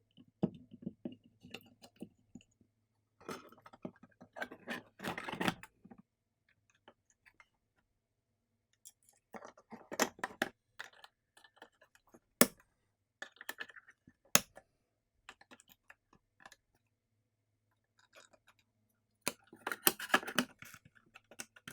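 Hands reassembling a mini PC: scattered clusters of small clicks and light knocks from plastic and metal parts being handled and fitted, with two sharp single clicks past the middle.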